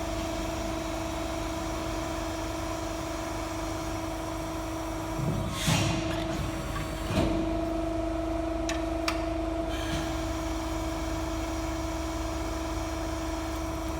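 A CNC sheet-metal folder running, with a steady motor hum. About five seconds in the machine moves with a rushing clunk, then knocks once a second or so later, and gives two light ticks near nine seconds.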